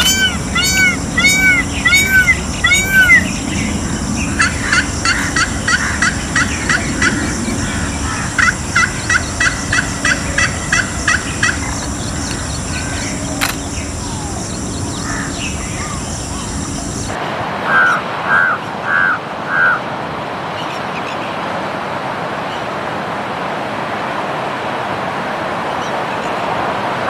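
Indian peafowl calling: a string of repeated calls about two a second, then a fast run of short notes, over a steady high insect buzz. About seventeen seconds in the sound cuts to a crow cawing four times, with two more caws near the end.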